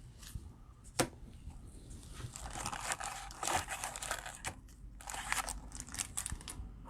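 Cellophane wrapper of a trading-card fat pack crinkling and tearing as it is handled and opened, with a single sharp click about a second in.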